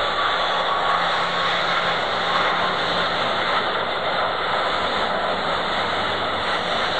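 Jet engines of a Batik Air Boeing 737 airliner at takeoff thrust as it lifts off and climbs: a steady, even rush of engine noise that neither rises nor falls.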